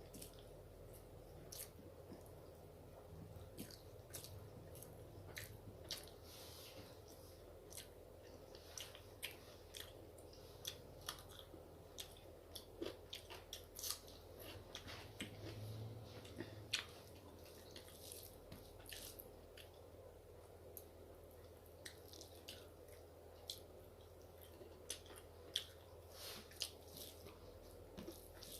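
Close-miked chewing and mouth sounds of a person eating a rice-and-curry meal: soft irregular smacks and clicks throughout, over a faint steady hum.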